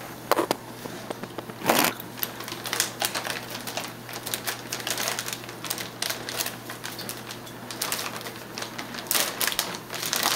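Scattered crackling and clicking handling noises, with a louder crackle about two seconds in and a quick cluster near the end, over a steady low hum.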